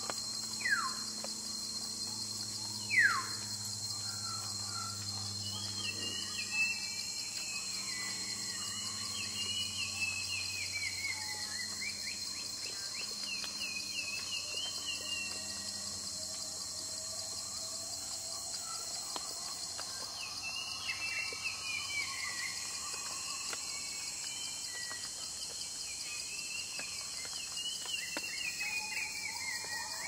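Tropical rainforest ambience: a steady high insect drone with a constant high tone, scattered bird chirps and calls, and two quick falling whistled calls about one and three seconds in, the loudest sounds.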